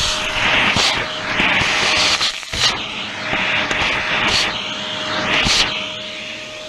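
Vacuum cleaner running with its hose nozzle pushed into a coffee grinder's burr chamber, sucking out old coffee grounds and residue. There is a steady motor whine under a rushing suction noise that swells and fades as the nozzle moves, with a few brief clatters. The rush softens near the end as the nozzle comes out.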